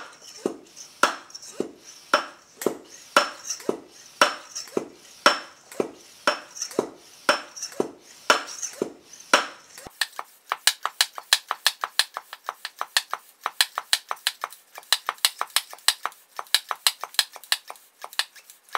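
High-pressure hand pump being worked in steady strokes, about two a second, filling a PCP air rifle's reservoir from 1500 to 3000 psi. About ten seconds in, the footage is sped up, so the strokes come several a second and sound higher and thinner.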